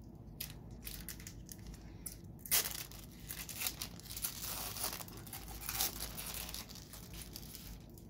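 2012 Panini Golden Age foil trading-card pack wrappers crinkling and tearing in the hands, an irregular crackle with a sharp peak about two and a half seconds in.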